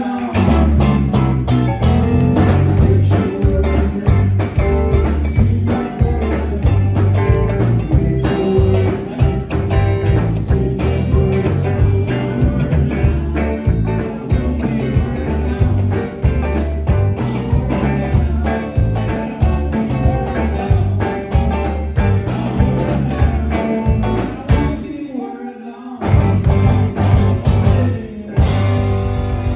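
Live rock band playing loud, with electric guitars, bass guitar and a driving drum beat. Near the end the bass and drums drop out for about a second, then the full band comes back in.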